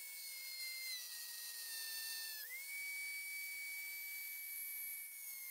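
Mini rotary tool (pen-style die grinder) spinning a thin metal-cutting disc into a wood block: a steady high whine that sags in pitch from about a second in while the disc bites, then jumps back up near the middle as the disc comes free and runs unloaded. The disc is made for metal, not wood, and is burning the wood rather than cutting it cleanly.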